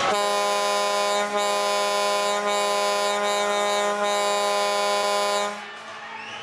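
Ice hockey arena horn sounding one long, loud, steady blast of about five and a half seconds, with a couple of brief dips, then cutting off near the end and leaving crowd noise.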